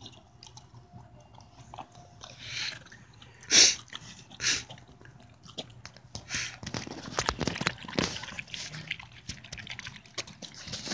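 A dog eating wet leftovers of rice and beans from a paper plate: busy wet chewing, smacking and lapping, dense from about six seconds in, after a few loud short noises in the first half.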